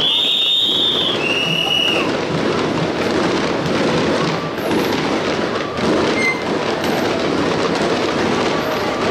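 A string of firecrackers crackling continuously in a dense, steady rattle. Two short high tones sound near the start, the second lower than the first.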